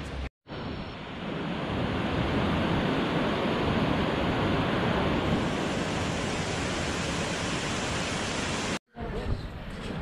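Steady rushing noise of a tall plunge waterfall, an even wash of falling water that starts just after a brief drop-out and cuts off suddenly near the end, giving way to fainter outdoor noise.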